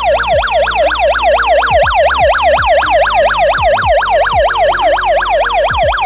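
Siren of an AGSHOME wireless GSM burglar alarm sounding in alarm, meaning the armed system has been triggered. It gives a loud, fast warble of about five up-and-down sweeps a second.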